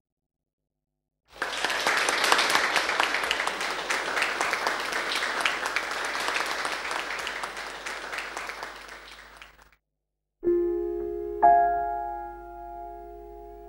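Audience clapping, starting about a second in and dying away over several seconds. Then piano notes begin near the end, a chord and a second struck note ringing and slowly decaying.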